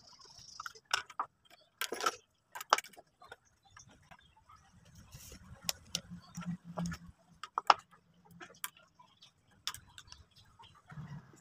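Irregular clicks and light knocks of a small plastic electronics case and its cables being handled and set down on a wooden workbench, with a DC barrel plug pushed into its jack near the end. A faint low hum sits under the clicks for a few seconds in the middle.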